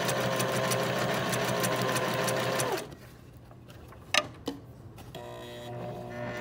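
Electric sewing machine stitching a seam through fabric, a rapid even needle rhythm over the motor's whine, stopping abruptly about three seconds in. A couple of sharp clicks follow, then a faint steady hum near the end.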